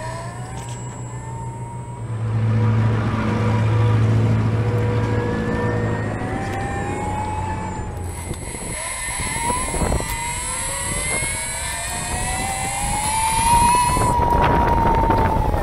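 Brushless outrunner motor (N5065, 270kv) on a DIY electric scooter whining as it runs, its pitch rising several times as the scooter speeds up and falling near the end as it slows. A low steady hum sits under it for a few seconds about two seconds in.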